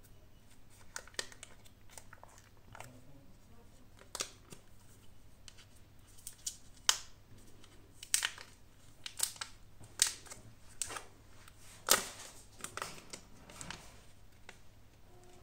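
Irregular sharp clicks and taps with light rustling from handling a new smartphone and its packaging.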